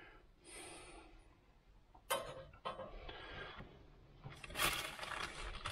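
Hot lard sizzling in a mild steel skillet as chicken nuggets are put in, coming in several hissing bursts, the loudest near the end.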